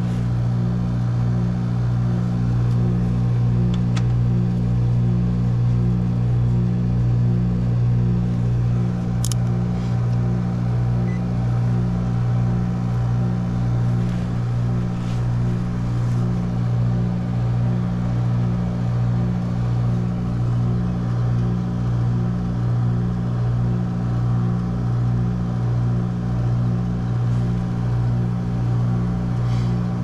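Heat pump outdoor unit running in heat mode: the compressor's steady low hum with the condenser fan, holding an even level, with a couple of faint brief ticks.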